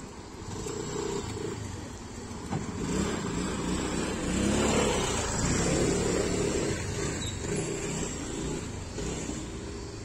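A motor vehicle engine running close by, growing louder through the middle and easing off toward the end, over outdoor street noise.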